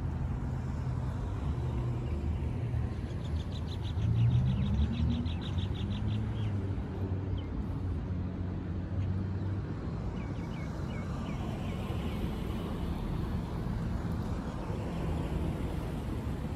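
Road traffic on a city street: a steady rumble of passing cars, with one vehicle accelerating about four seconds in, its engine rising in pitch. A bird's rapid trill and, later, a few short chirps sound over the traffic.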